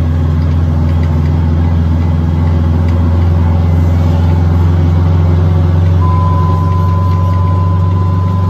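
Fire engine running down the road, heard from inside the cab as a loud, steady low drone. About six seconds in, a steady high tone starts and holds to the end.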